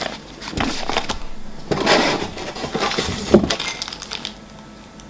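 Plastic packaging being handled: rustling and crinkling of shrink-wrapped polishing pads and a small plastic parts bag, with light clicks and clatter and a sharp click a little over three seconds in, quieter near the end.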